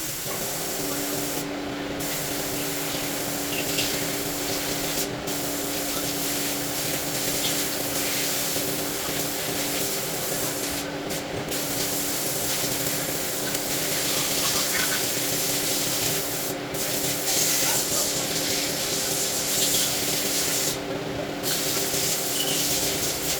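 Steady spraying hiss with a few brief breaks, over a constant machine hum that starts about a second in.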